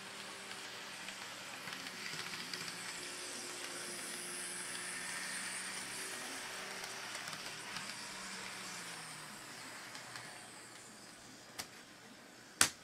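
Kato N scale CSX GE ES44AC model locomotive and its coal hoppers running past on the track: a whirring motor and hissing wheel noise that swells as the train nears and fades as it moves away. Two sharp clicks near the end, the second much louder.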